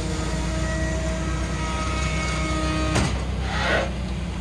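A vehicle engine idling steadily, with a sharp clack about three seconds in followed by a short hiss.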